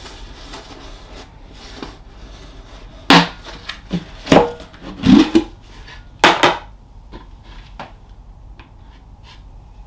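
Snap-on lid of a tightly sealing plastic tub being prised off its rim: four loud plastic cracks and pops between about three and six and a half seconds in, one with a short creak. Lighter handling knocks follow as a hand goes into the tub.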